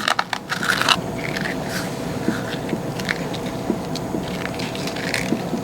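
Vanilla wafer cookies being crushed and crumbled, a run of small irregular crunches and crackles.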